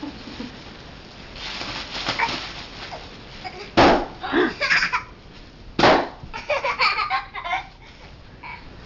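Bubble wrap popping twice with sharp bangs, a couple of seconds apart, each pop followed by a small child's laughter and giggles.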